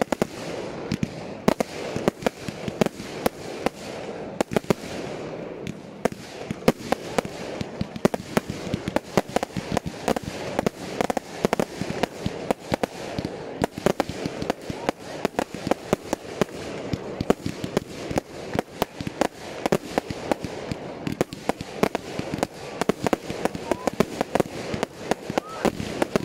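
Firework batteries firing with aerial bursts exploding overhead: a rapid, unbroken string of bangs and crackles, several a second.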